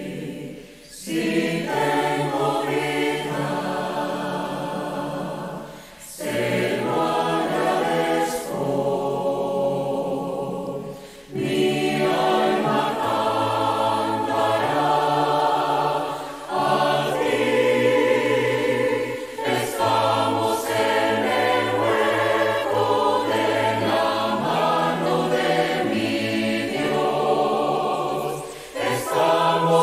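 Mixed choir of men's and women's voices singing a Spanish Christian hymn, in sustained phrases with short breaks between them.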